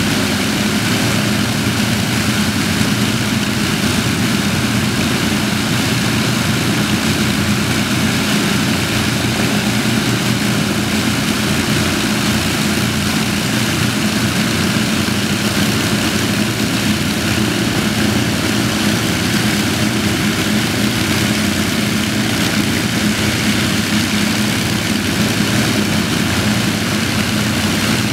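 The four Rolls-Royce Merlin V12 engines of an Avro Lancaster bomber running together on the ground, propellers turning, with a loud, steady, even drone.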